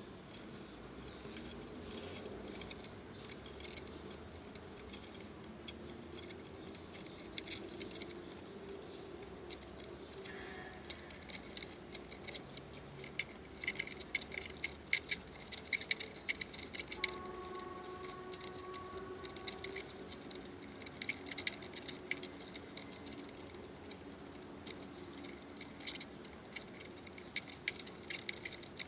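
Small German cockroach trying to get out, heard as a faint, dry ticking in runs of rapid clicks, busiest in the middle, over a low steady hum.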